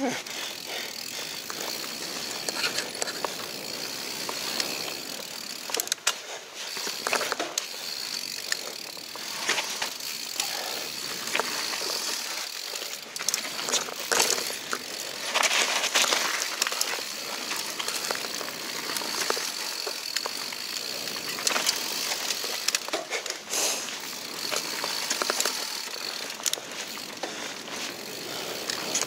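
Mountain bike riding fast down a dirt singletrack: steady tyre noise on the dirt, broken by many sharp knocks and rattles as the bike goes over bumps and roots.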